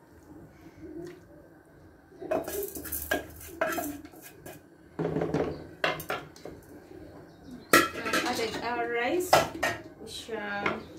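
Cookware clattering in irregular clusters of knocks and clinks as a wooden spoon stirs rice in a pot of pilau and a metal bowl and a glass pot lid are handled, loudest near the end.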